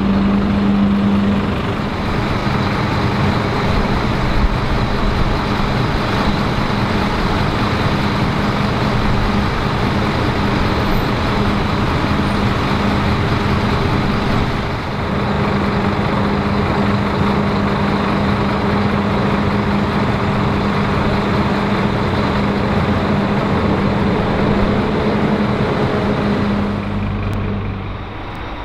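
City buses' diesel engines running close by, with a steady low hum, briefly dipping about halfway through. The sound changes abruptly near the end.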